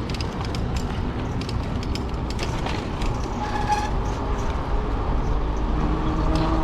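Steady vehicle rumble with scattered light clicks; a humming engine note grows louder near the end.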